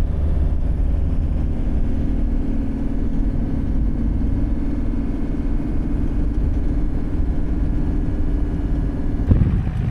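Vehicle engine and road noise heard from inside the cab, a steady low drone while driving up a mountain pass road. Near the end it gives way abruptly to gusty wind buffeting the microphone.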